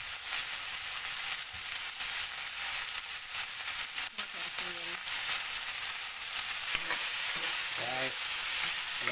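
Pork pieces with garlic and onion sizzling steadily in hot oil in a steel wok, with scattered clicks and, near the end, a metal spatula scraping and stirring the meat.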